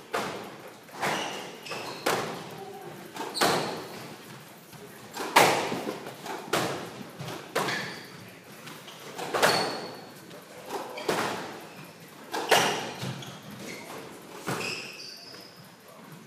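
Squash ball smacking off racquets and the court walls in a rally, sharp echoing hits about once a second in the walled court, with a few short shoe squeaks on the wooden floor.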